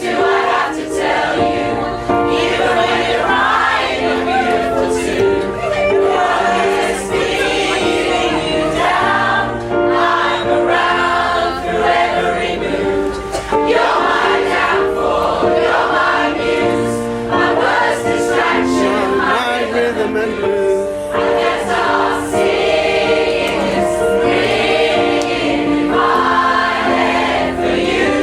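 A choir of mixed voices singing a pop song with accompaniment.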